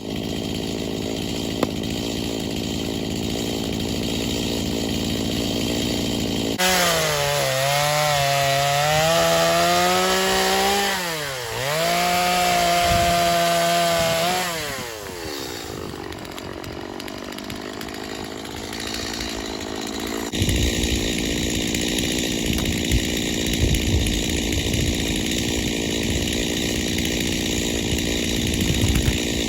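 Gas-powered two-stroke chainsaw cutting through downed-tree logs. It runs at high revs under load, dips briefly partway through, then winds down, and the sound changes abruptly a couple of times.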